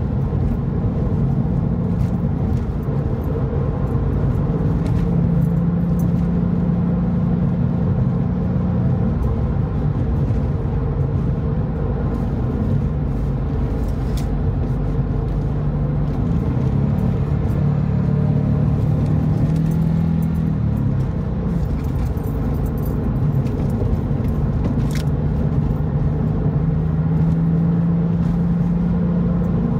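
Porsche 911 (996) Carrera's 3.6-litre flat-six running at road speed, heard from inside the car with tyre and road noise; the engine note steps up and down in pitch several times as speed changes and the Tiptronic automatic shifts. A few faint cabin rattles or clicks.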